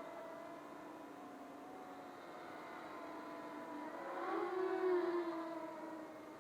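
Racing quadcopter's four 2204 2300kv brushless motors and 5-inch props whining in flight, the pitch wandering up and down with throttle. It swells louder and higher about four to five seconds in, then eases off.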